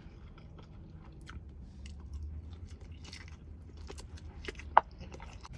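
A person chewing a mouthful of garlic naan with butter chicken close to the microphone: soft, wet mouth clicks and small crackles, with one sharper click a little before the end.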